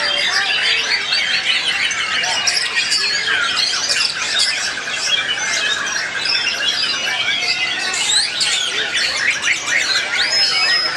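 White-rumped shama (murai batu) singing in full contest song: a rapid, unbroken stream of varied high whistles, trills and chattering phrases.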